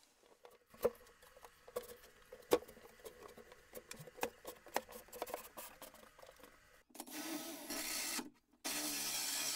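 Scattered light knocks and clatter as the wooden cabinet is handled and turned over. About seven seconds in, a Bosch 18 V cordless drill starts running a hole saw into the cabinet's white panel, stops for a moment, then cuts steadily and louder.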